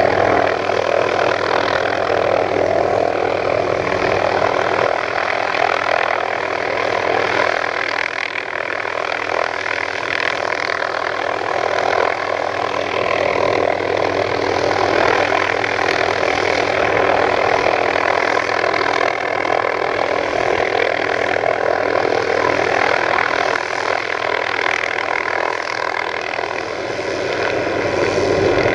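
Small helicopter hovering, its main rotor and engine giving a steady, loud drone that swells and eases slightly.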